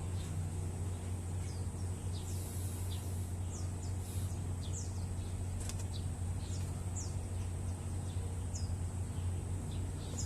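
Small birds chirping repeatedly in short, quick downward notes over a steady low hum.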